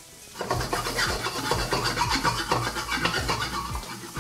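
Sliced onions and garlic frying in hot olive oil in a wok, sizzling as a wooden spatula stirs and scrapes them in repeated strokes. It starts about half a second in.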